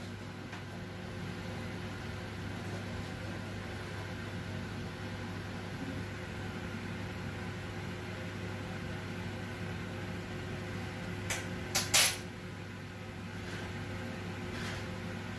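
A spoon stirring bread-dough ingredients in a wooden bowl over a steady low hum, with a quick cluster of three sharp knocks about eleven seconds in.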